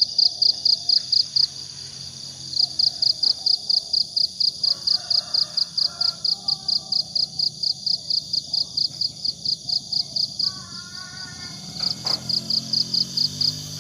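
Crickets chirping in a steady pulsed trill, about four chirps a second, with short breaks about two seconds in and near the end. Birds call softly in between, and a low animal call comes near the end.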